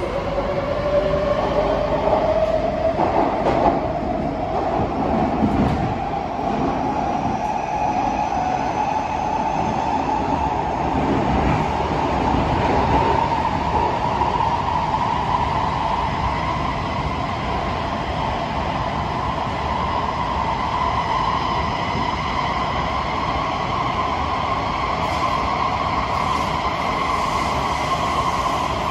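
Kawasaki–CSR Qingdao Sifang C151B metro train heard from inside the car, running in a tunnel. Its motor whine climbs in pitch over the first fifteen seconds or so as the train picks up speed, then holds steady at running speed. Underneath is a continuous rumble of the wheels on the track.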